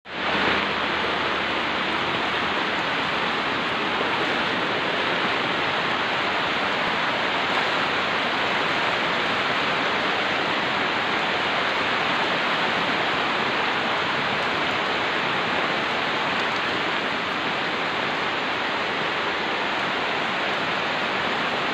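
Floodwater rushing over the ground in a steady, unbroken noise of running water.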